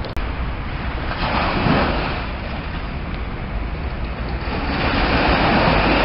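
River water surging and washing against a brick wall at the Thames edge, swelling about a second in and again more strongly near the end, with wind rumbling on the microphone.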